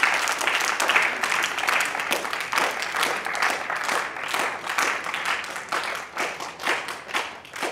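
Audience of children and men applauding, many hands clapping at once, thick at first and thinning to scattered claps toward the end.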